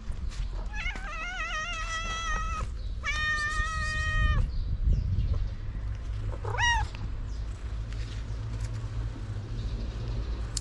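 Cat meowing: two long, drawn-out meows, the first wavering in pitch and the second held steady, then a short meow about six and a half seconds in that rises and falls.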